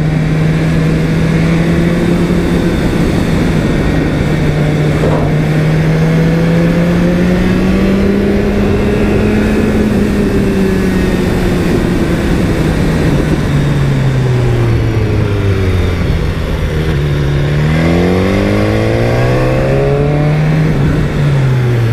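BMW S1000R's inline-four engine pulling uphill in second gear over wind noise. The engine note rises and falls slowly with the throttle, then climbs quickly under acceleration about seventeen seconds in and drops off near the end.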